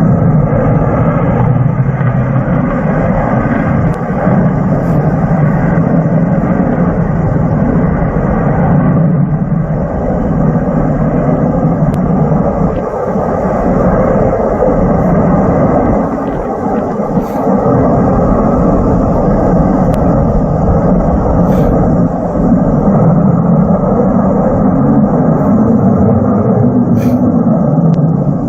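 Jet aircraft engines running loud and steady, mixed with strong wind buffeting the microphone.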